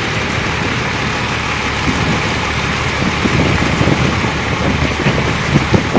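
Heavy-haulage truck and trailer rolling slowly round a roundabout: a steady rumble of engine and tyres, with irregular low buffeting that grows stronger from about halfway through.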